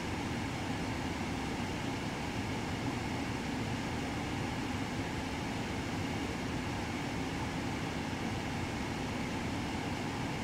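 Steady rumble and hiss inside a parked car with the engine idling and the air conditioning blowing.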